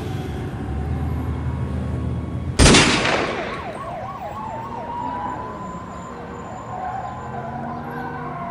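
Outro sound design: a low bass drone, cut by a heavy boom hit about two and a half seconds in, followed by a siren effect that warbles rapidly and then settles into a steady wail.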